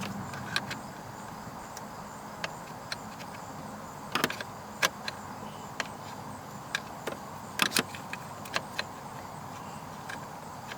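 Scattered small plastic clicks and knocks, irregular and a second or so apart, with a short cluster about four seconds in and another near eight, as a replacement turn signal switch is pushed into a Pontiac G6 steering column housing and will not seat, over a steady low hiss.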